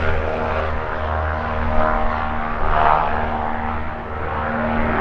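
Cessna O-2A Skymaster flying a low pass, its front and rear propeller-driven piston engines (push-pull layout) running steadily at power with a propeller buzz that swells about three seconds in.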